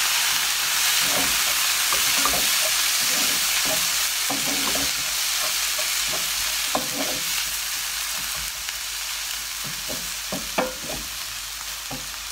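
Freshly added water sizzling in a hot non-stick pan of instant noodles and vegetables, slowly fading, while a wooden spoon stirs and scrapes against the pan with scattered knocks.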